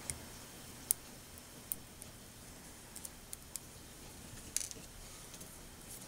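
Faint, scattered clicks and taps of steel tweezers and plastic component cut tape being handled and laid on a wooden board, about eight in all, with a small cluster of clicks about four and a half seconds in.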